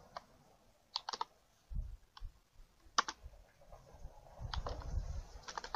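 Computer keyboard being typed on: sharp key clicks in short irregular runs of one to three strokes with pauses between, busier near the end, along with a few low dull thuds.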